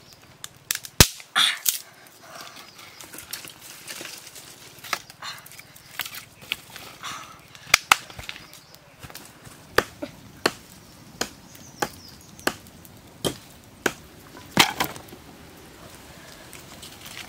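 Sharp cracks and knocks of dry sticks being snapped and handled while a campfire is built. In the second half they come as a run of evenly spaced strikes, about one every 0.7 s.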